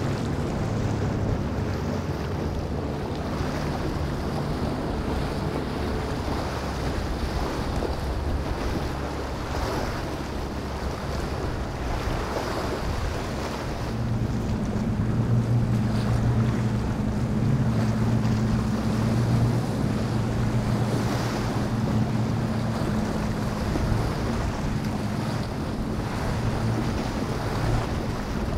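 Motorboat engines droning as boats run through choppy inlet water, with waves and surf rushing and wind buffeting the microphone. The engine drone grows louder about halfway through and stays up until near the end.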